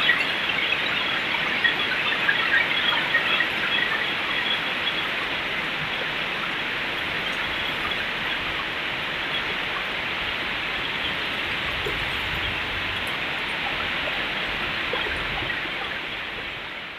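Heavy rain pouring down steadily, with scattered high squeaks in the first few seconds; the sound fades out near the end.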